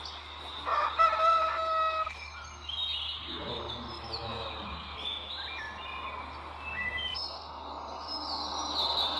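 Bird-like calls from a commercial soundtrack played at lowered pitch: one held crow-like call about a second in, then a run of short chirps and warbling tones.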